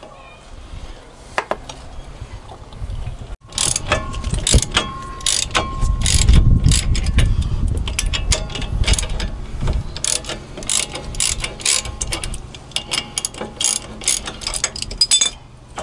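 Ratchet wrench clicking in quick, repeated strokes as bolts are turned, starting about three seconds in and running nearly to the end, with a low rumble under the clicks in the middle.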